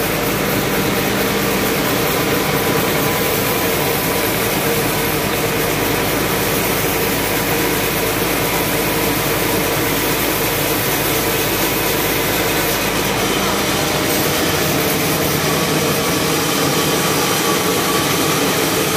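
Band sawmill running and sawing lengthwise through a cempedak log, a loud steady whine and rasp of the blade in the wood with the motor's hum beneath. The deep rumble underneath drops away about two-thirds of the way through.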